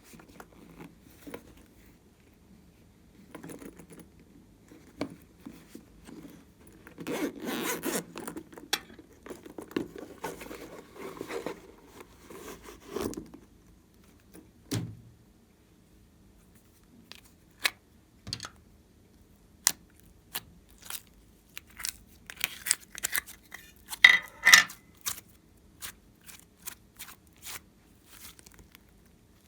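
Close-miked handling of slime-making materials: a stretch of scraping and crinkling several seconds in, then scattered sharp clicks and taps, loudest a little past the three-quarter mark.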